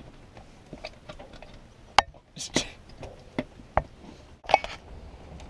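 Scattered light clicks and knocks of a circuit panel being handled and tried into its box, with the sharpest click about two seconds in and a few brief rustles.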